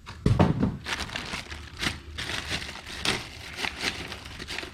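Packaging crinkling and rustling as parts are pulled from a pressure washer's shipping box, with a dull thump near the start.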